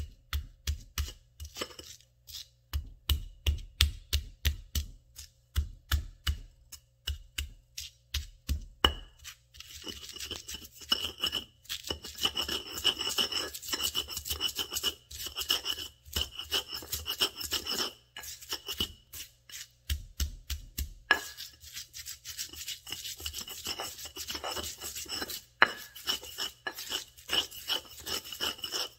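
Garlic, salt and ground coriander being crushed in a mortar with a pestle (cobek and ulekan) into a spice paste. There is a run of quick pounding strikes, about three a second, for the first several seconds, then steady scraping, grinding strokes.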